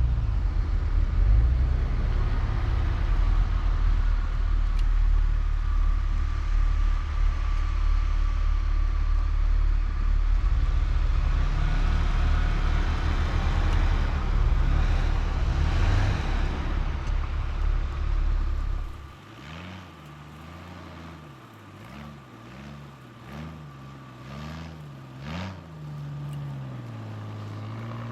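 Jeeps driving through deep snow: a loud, steady low engine and drivetrain rumble. About 19 seconds in it gives way to a quieter engine revving up and down again and again, a Jeep working to push through deep snow, with a few short knocks near the end.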